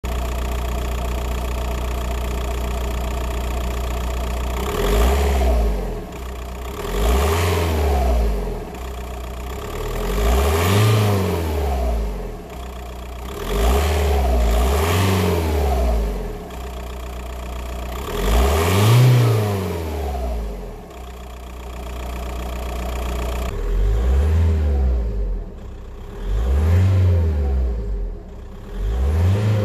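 2002 VW Golf Mk4's 1.9 TDI PD130 (ASZ) four-cylinder diesel, on a stock exhaust with a K&N air filter, idles steadily for about four seconds. It is then revved in a series of short blips, each rising and dropping back to idle.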